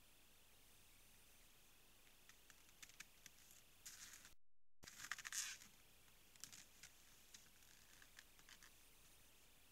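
Faint, scattered crunching and scratching clicks from a moose moving in the snow and working at a salted log lick. The sound cuts out completely for a moment about halfway through, and the loudest crackly burst comes just after the gap.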